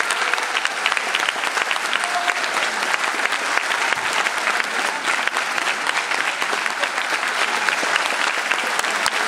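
Audience applauding, a dense and steady clapping from many hands.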